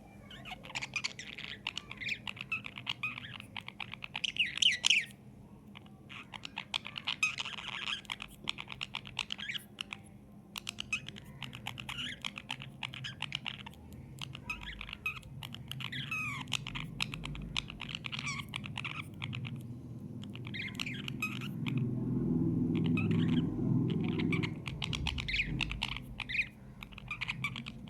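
Budgerigar warbling and chattering: runs of quick chirps and squawks a few seconds long, broken by short pauses. A low rumble swells underneath for a few seconds in the later part.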